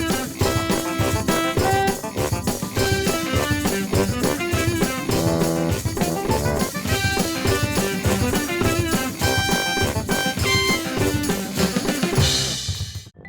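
Band music with a steady drum-kit beat and a pitched melody over it, ending in a cymbal-like crash about twelve seconds in.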